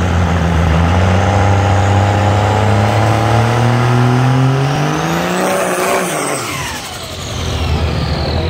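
Diesel drag-racing pickup trucks at the starting line: an engine held under load, its pitch climbing slowly as it builds up for the launch. About five to six seconds in the trucks leave, with a high whistle that rises and then falls away.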